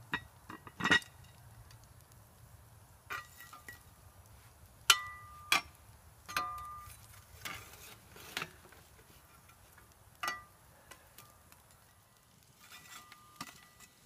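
Lodge cast iron Dutch oven and its lid clanking against the iron grate as the pot is set into the campfire coals: about ten sharp metal clinks, some ringing briefly, the loudest about five seconds in.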